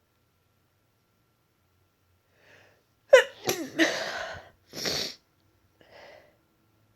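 A congested woman sneezing: a faint breath in, then a loud sneeze about three seconds in with a falling voiced cry that runs into a noisy blast of air, followed by a second noisy burst about a second later and a faint breath.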